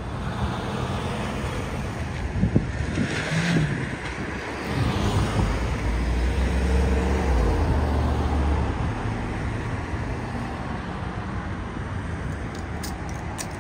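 Street traffic: cars and trucks driving past with a steady rush of tyre and engine noise. A low engine hum is loudest about five to nine seconds in.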